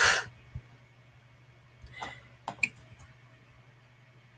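A short breathy exhale from a person, then a few faint clicks over a steady low hum.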